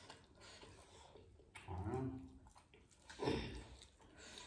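A person's voice making two short murmurs, about one and a half seconds in and again about three seconds in, over faint eating noises.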